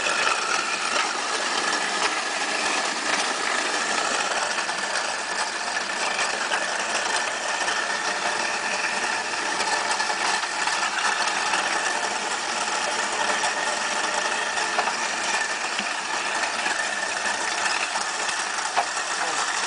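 InSinkErator sink food waste disposer running steadily, grinding vegetable scraps and rotten grapes into a slurry with tap water running through it.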